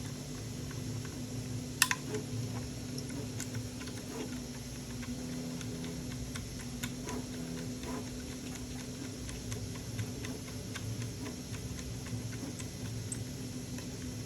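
Small clicks and taps of hand work on a 3D-printed plastic model, screws and parts being handled and driven in, with one sharp click about two seconds in, over a steady low hum.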